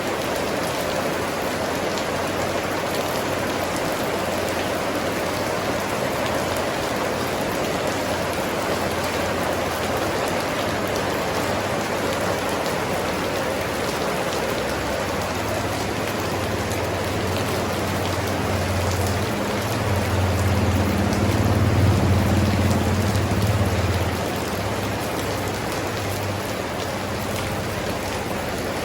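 Steady, even rain falling. About two-thirds of the way through, a low rumble swells for a few seconds and then fades.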